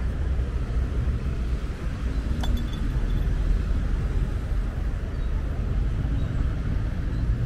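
Outdoor city street ambience: a steady low rumble, with a single sharp click about two and a half seconds in.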